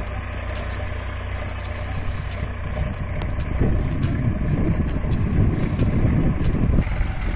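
Diesel tractor engine running steadily under load as it pulls a plough through hard, dry soil. The sound grows louder and rougher about halfway through, then eases near the end.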